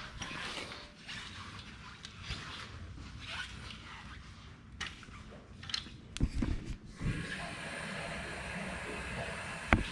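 Scattered light clicks and knocks with some rustling, a few low thumps about six seconds in, then a faint steady hum.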